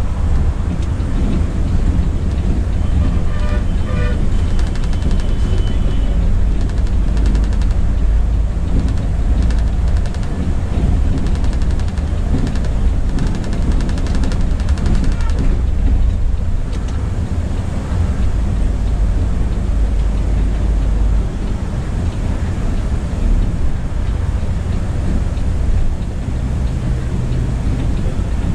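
Volvo B9R multi-axle coach under way, heard from inside the cabin: a steady low rumble of engine and road noise. A brief pitched sound comes a few seconds in.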